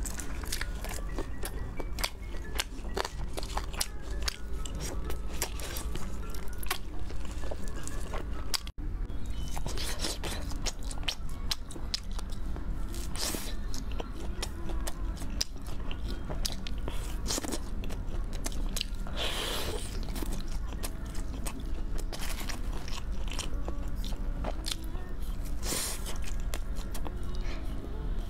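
Close-miked eating sounds. A whole chicken is torn apart and chewed, then, after a cut about nine seconds in, meat is bitten off skewers and chewed, with repeated crunchy bites, over background music.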